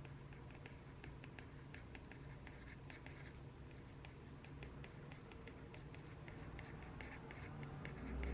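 Quiet desk work: a quick, irregular run of soft clicks and taps from studying by hand at a desk, over a faint steady room hum.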